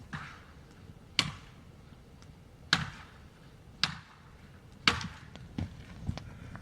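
Wood being chopped: a series of sharp strikes about a second apart, four of them much louder than the rest.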